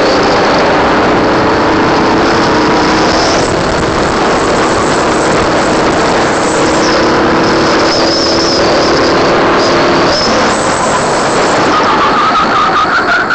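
Racing go-kart engine at full throttle, heard from on board, its pitch climbing steadily as the kart gathers speed, under a loud rushing hiss. About ten seconds in the note breaks off briefly, then climbs again near the end.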